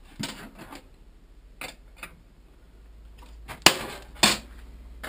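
Abrasive sanding belt being turned by hand over the rollers of a homemade belt grinder, with the motor not running: scattered short rustles and light knocks, the loudest a brief scrape about three-quarters of the way through.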